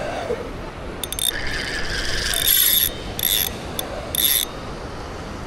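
Spinning reel being cranked to wind in line, its gears whirring in several short spurts.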